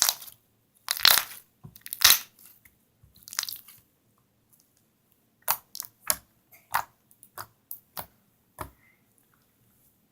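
Hands squishing and poking thick, glossy milk slime close to the microphone: a few longer squelching crunches, then a run of short sharp clicking pops ("crackalackles") from air pressed out of the slime.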